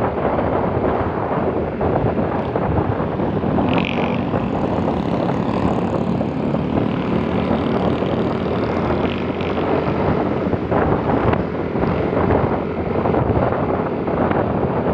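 Wind rushing over the microphone of a scooter ridden at speed, with the engine's steady drone underneath. A brief high-pitched sound comes about four seconds in.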